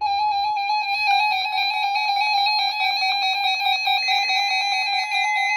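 Several NOAA weather radios sounding their alert alarms together for the required weekly test: a chorus of steady, loud electronic beeping tones that starts suddenly. More radios join about a second in and again near four seconds.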